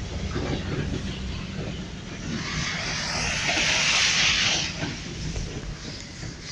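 A vehicle's low engine rumble, with a rushing hiss of water that swells from about two seconds in and fades just before five, typical of tyres cutting through a flooded street.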